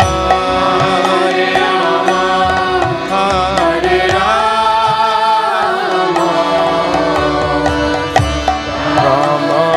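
Kirtan music: a voice sings a gliding melodic line over a steady held drone, with hand-drum strokes throughout.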